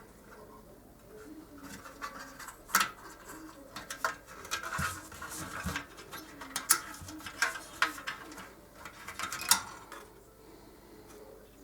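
Irregular clicks, taps and rustles of hands handling the opened monitor's parts and circuit board. They come in an uneven run, loudest from about two seconds in until near the end.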